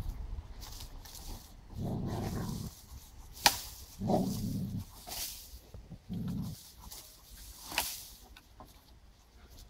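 White Swiss Shepherd dogs vocalising in three short, low bouts while they play with a long branch. Two sharp clicks fall between the bouts.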